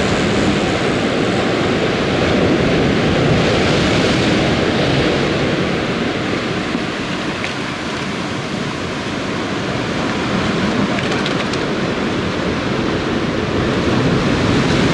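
Ocean surf breaking and churning against a rocky shore, a steady rush of water.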